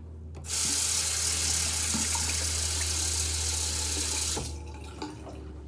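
Bathroom tap running into the sink for about four seconds, turned on shortly after the start and shut off partway through.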